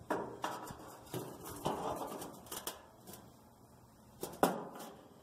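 Ceramic-coated iron grate clinking and knocking against the metal firebox of a gas grill as it is fitted into place: a run of separate light knocks, the loudest about four and a half seconds in.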